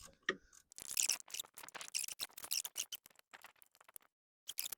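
Ratcheting 10mm spanner clicking rapidly as it is worked back and forth on a radiator mounting bolt, in quick irregular runs with a short pause near the end.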